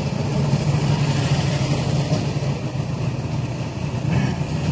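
Car driving along a highway, heard from inside the cabin: a steady low engine hum with tyre and road noise.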